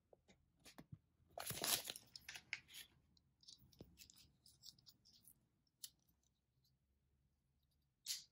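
Kinder chocolate egg wrapper being torn and crinkled: a rustling burst of about a second and a half, then scattered light crackles and two sharp clicks, the second near the end.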